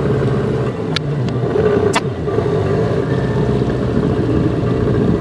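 Boat's outboard motor running steadily with a low rumble and a held hum, with two sharp clicks about a second apart near the start.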